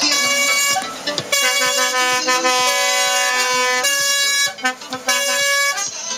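Truck air horn sounding in several long blasts, the longest about two and a half seconds, over music with a beat, heard from inside a vehicle's cabin.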